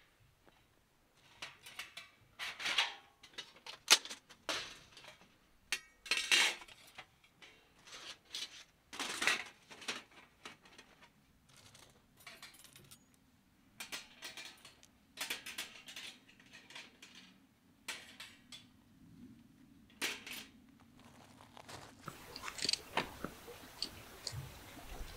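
Irregular clinks, taps and rustles of small objects being handled, a few each second with short pauses between.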